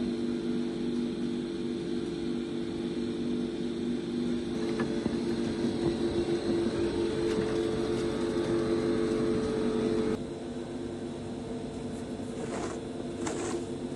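Chairlift machinery running with a steady hum of several tones. The sound drops to a quieter level about ten seconds in, and a few clicks come near the end.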